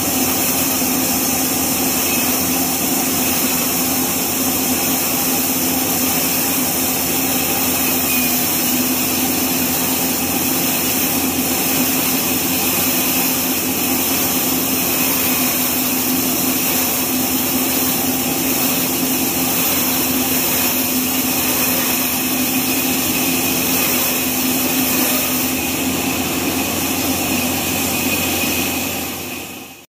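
Horizontal band sawmill running with its band blade cutting lengthwise through a neem log: a steady, loud machine drone with a constant whine over it. It fades out near the end.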